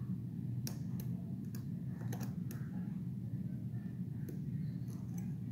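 Scattered faint clicks of a lock pick and tension wrench working the pins and spools inside an ISEO R6 Euro cylinder, over a steady low hum.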